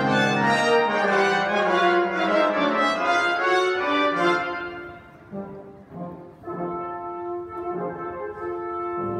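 Brass ensemble playing a fanfare: loud full chords for about the first four seconds, then the music drops to softer held notes over short low notes repeated at an even pace.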